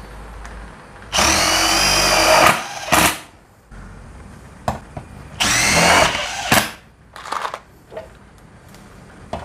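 Ryobi Kyocera BID10XR 18V brushless impact driver running in two bursts of about a second each, driving self-drilling tek screws into galvanized light-gauge steel in its tek-screw mode. Short clicks and knocks follow from handling the tool and screws.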